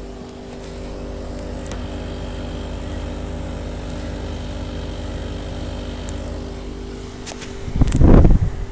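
1992 Sanyo 7,000 BTU window air conditioner running with its compressor and fan on: a steady hum made of several steady tones over a low rumble. Near the end there is a short, loud burst of low rumbling noise.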